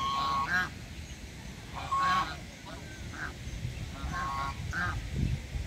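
Domestic geese honking: a series of about seven short, nasal calls, some in quick pairs, spread across the few seconds.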